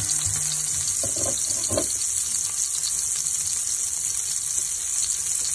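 Two slices of foie gras sizzling in a pan, frying in their own rendered fat: a steady, dense hiss.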